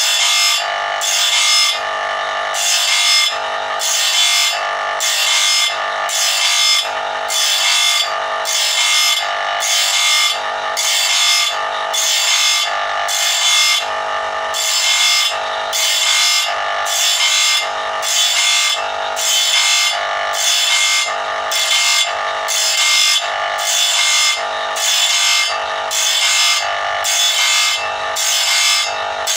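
Electric motor-driven abrasive wheel grinding the steel teeth of a long sawmill saw blade, sharpening it tooth by tooth. The motor runs with a steady whine, and a rasp of steel on the wheel comes about once a second as each tooth is ground.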